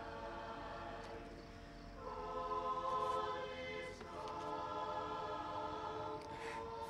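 A choir singing slow, held chords, swelling to its loudest a little before the middle.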